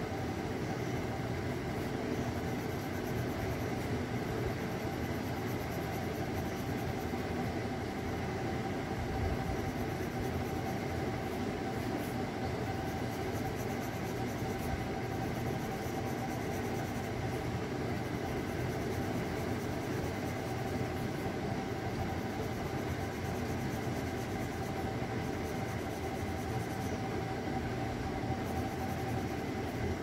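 Steady mechanical hum and hiss with a few constant tones, unchanging throughout.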